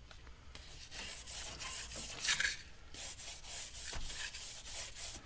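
Wire brush scrubbing paint thinner back and forth across the deck of a 5.3 L LS V8 engine block, a quick run of scratchy strokes with a short lull midway, working off old head gasket material.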